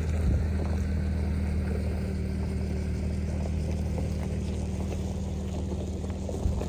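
A vehicle's engine running with a steady low drone, with faint scattered ticks over it.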